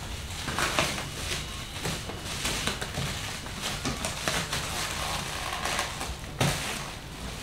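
Clear plastic stretch wrap crinkling and tearing as it is pulled off a cardboard PC-case box, in irregular rustling strokes, with one dull knock about six seconds in.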